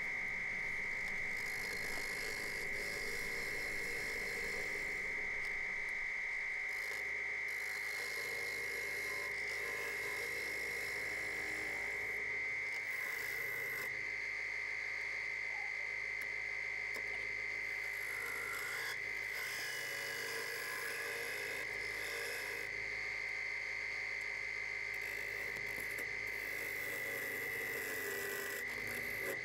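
Wood lathe spinning a large wooden blank at 800 RPM with a steady high whine, while a gouge cuts into the face of the blank with an on-and-off hiss.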